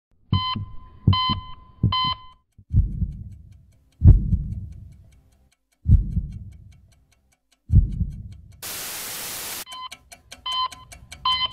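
Electronic trailer sound design: three short beeping tones with low thumps, then four deep bass hits about two seconds apart, each fading slowly. About nine seconds in comes a second-long burst of static, followed by fast ticking with more beeps.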